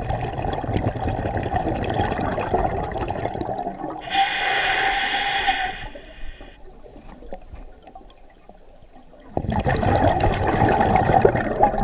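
Scuba diver breathing through a regulator underwater: rushing, bubbling exhaust and a sharper hiss about four seconds in, a quieter stretch, then the bubbling rush again from about nine seconds on.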